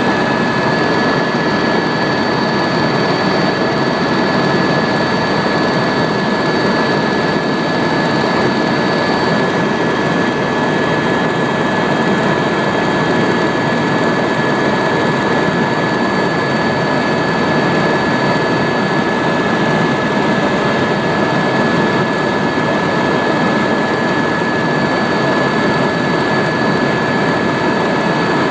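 Helicopter in flight, heard from inside the cabin: a steady dense rumble with a constant high whine over it.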